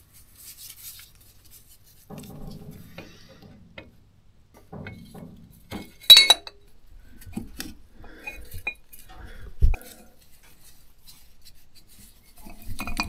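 Steel parts and a screwdriver clinking and tapping as a universal-joint yoke is fitted to the tractor's drive shaft, with one sharp ringing metal clink about six seconds in and a dull knock near ten seconds.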